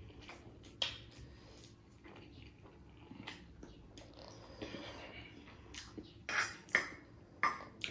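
Eating sounds: utensils clicking against plates and bowls, with chewing. There is one sharp click about a second in and a few short louder bursts near the end.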